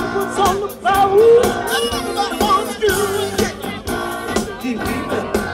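Live band playing a song, with a voice singing over drums.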